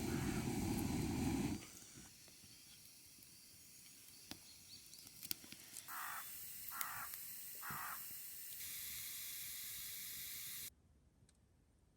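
A crow cawing three times in quick succession, about six seconds in. Before it, a loud rushing noise stops about a second and a half in.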